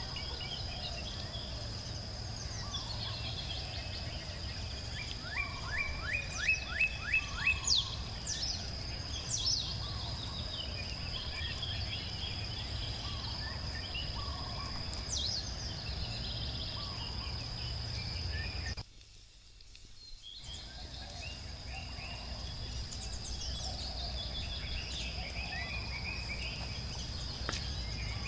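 Outdoor ambience of birds chirping and calling over a steady high insect drone and a low rumble, with a quick series of about eight repeated bird notes several seconds in. The sound drops out briefly about two-thirds of the way through.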